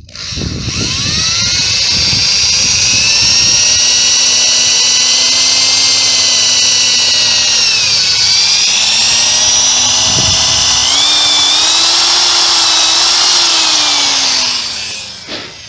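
Power drill running as it bores out an engine mount bolt hole in an 80cc bicycle engine's case, ready for an M8 tap. Its steady whine sags under load about halfway through, picks back up, and winds down just before the end.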